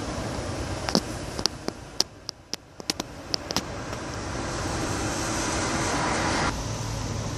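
Steady harbour background noise, with a quick run of sharp clicks about a second in, and a rush of noise that swells and then cuts off suddenly near the end.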